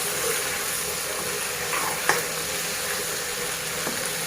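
Local chicken frying in a pan with a steady sizzle, stirred with a utensil that clicks against the pan about two seconds in and again near the end.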